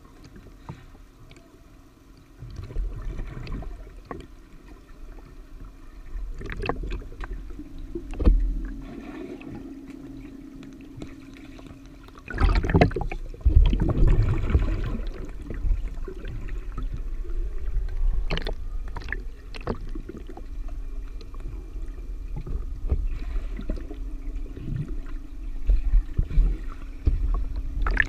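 Water in a swimming pool heard from underwater: muffled sloshing, gurgling and bubbles from a swimmer moving close by, over a steady low hum. The churning grows louder and busier about twelve seconds in.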